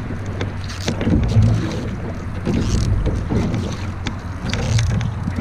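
Canoe paddle strokes: a single-blade paddle dipping and pulling through the water in a steady rhythm, with a splash on each stroke. Under it runs a constant low rush of water and wind on the microphone.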